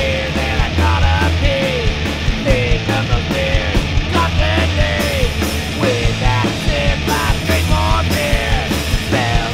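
Studio recording of a punk rock song by a guitar, bass and drums band, playing loud and continuously with a steady driving beat.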